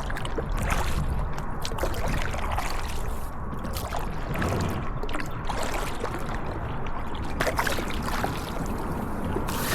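Kayak paddles dipping into the water and dripping as kayaks are paddled along, making irregular splashes over a steady low rumble.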